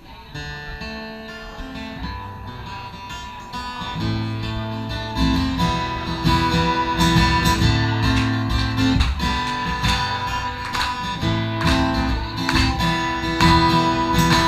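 Instrumental passage of a song: acoustic guitar strumming chords, the band filling out and growing louder about four seconds in.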